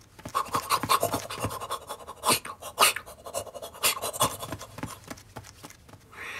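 A puppy's claws scrabbling and skittering: a dense, irregular run of quick scratchy clicks.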